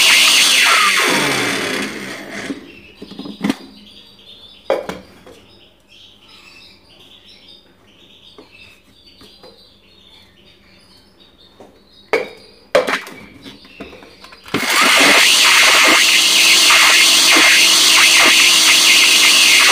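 Electric grinder grinding flaxseed, garden cress and nigella seeds. The motor is switched off about a second in and winds down with a falling whine. A few knocks follow, then it starts again about three-quarters of the way in and runs on.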